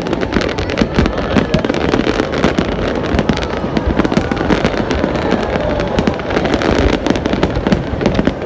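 Fireworks going off in a dense, continuous barrage: many sharp cracks and bangs each second over a steady rumble.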